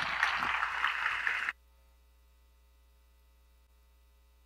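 Audience applauding, cut off abruptly about a second and a half in, followed by a faint steady electrical hum.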